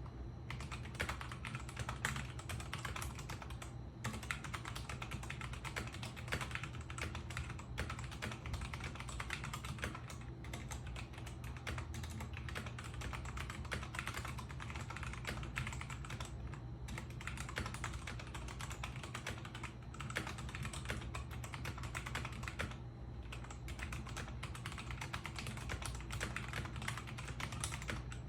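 Typing on a Royal Kludge RK84 mechanical keyboard with brown tactile switches: a fast, continuous run of key clicks with a few short pauses, over a steady low hum.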